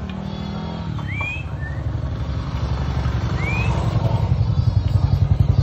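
A motorcycle engine running with a low, rapid putter, growing steadily louder as it approaches. A few short rising whistles sound above it.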